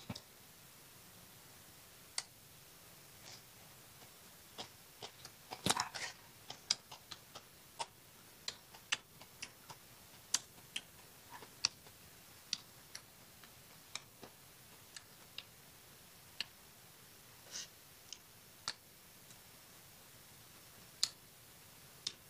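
A person chewing a mouthful of raw crab-claw herb (rau càng cua) salad with small shrimp: scattered sharp, crisp mouth clicks and crunches, irregular, with a louder cluster about six seconds in.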